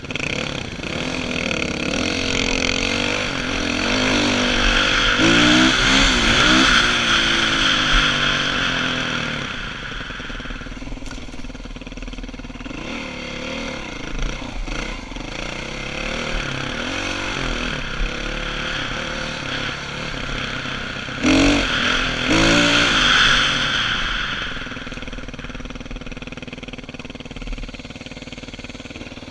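Dirt bike engine heard from the rider's helmet, revving up and down through two louder stretches of riding, then settling to a steadier, lower run near the end.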